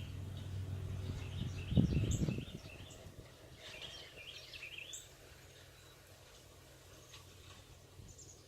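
Songbirds singing, a run of quick chirping phrases, over a low rumble that swells about two seconds in and then fades, leaving only faint bird calls.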